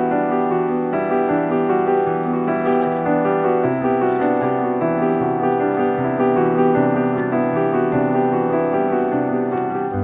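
Background piano music playing held chords.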